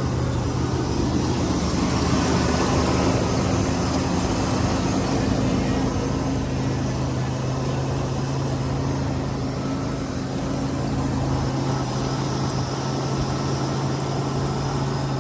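Big-block V8 of a GMC Sierra HD pickup idling steadily, just after a cold start.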